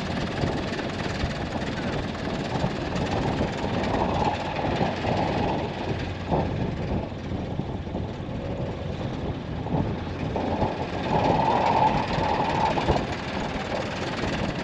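Vehicle engines running, a steady low rumble that swells and grows louder about eleven seconds in.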